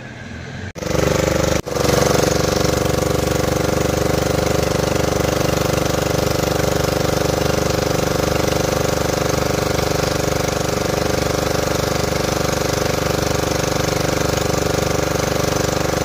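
Motorboat engine running steadily at a constant speed, a loud drone that cuts in abruptly about a second in, breaks off briefly, then holds unchanged.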